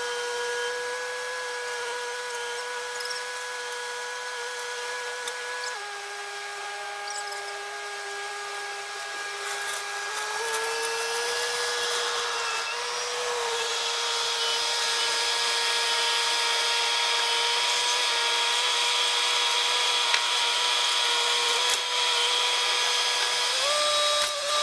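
Bobcat T66 compact track loader running under load with a steady whine of engine and hydraulics. The pitch steps down about six seconds in, comes back up around ten seconds and rises again near the end. It grows louder as the machine carries a heavy oak log on its forks up to the trailer.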